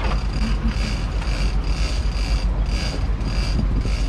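Big-game fishing reel being cranked in under load on a hooked blue marlin: a rhythmic whirring pulse about two to three times a second. Underneath it runs the steady low rumble of the boat's engine idling in neutral.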